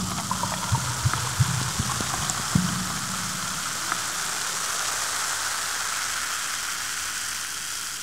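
Sparkling water fizzing, its bubbles hissing steadily, with a few small pops and low gurgles in the first couple of seconds before it settles into a smooth fizz.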